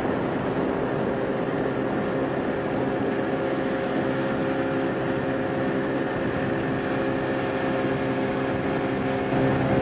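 Boat engine running at a steady speed, with wind and water rushing past.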